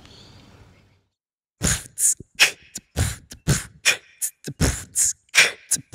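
Beatboxed rhythm opening a song: a steady run of short vocal-percussion hits, about three a second, starting after a brief silence.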